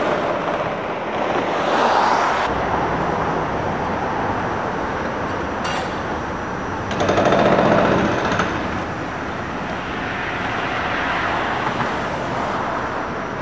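City street traffic: vehicles passing, loudest near the start and again about seven seconds in.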